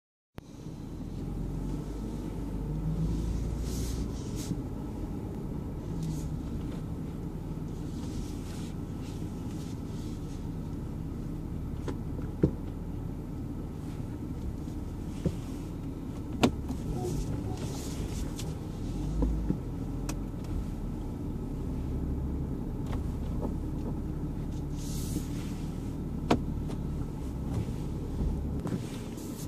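Sharp creaks and clicks from a BMW F80 M3's body while driving, a handful at irregular moments over a steady low road-and-engine rumble heard inside the cabin. The creaking is of a kind that stops when the windows are lowered.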